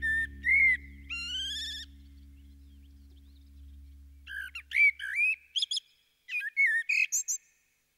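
Blackbird-style fluting, gliding song phrases from the opening of a recorded music track, in two spells with a pause between, over a low hum that fades away about halfway through.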